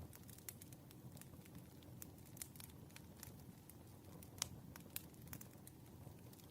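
Wood fire crackling quietly: irregular sharp pops and snaps of burning logs over a soft low rumble of the flames, with a louder pop a little past the middle.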